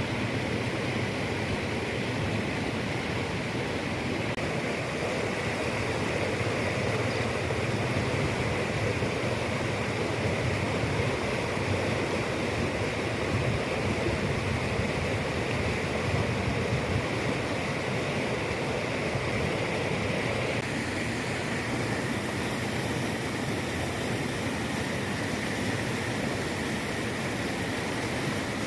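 Floodwater rushing steadily. About two-thirds of the way in the sound turns hissier and brighter.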